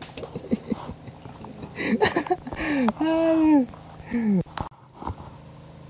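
Steady high-pitched insect chorus with a fine, even pulse, with a man's short wordless exclamations around the middle. All sound briefly cuts out about four and a half seconds in.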